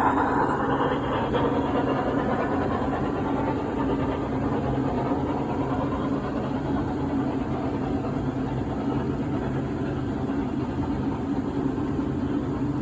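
HO scale model train running on the layout: a steady, engine-like hum that eases slightly at the start and then holds level.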